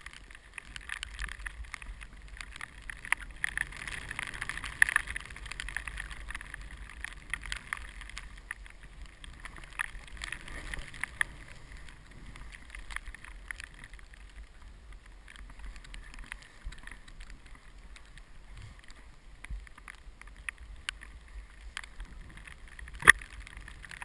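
Snow hissing and scraping under a rider's edges while riding through powder, with scattered small ticks and one sharp knock near the end.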